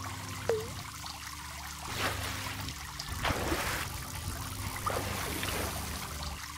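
Logo-animation sound effects: water trickling and splashing over a low steady drone. A short pitched swoop comes about half a second in, and louder splashy surges come around two and three and a half seconds in.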